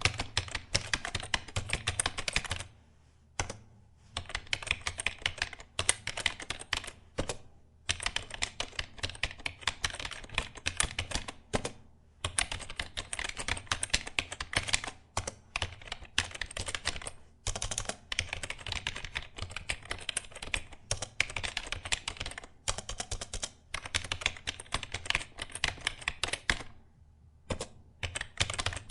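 Typing on a computer keyboard: rapid runs of key clicks in bursts a few seconds long, broken by short pauses.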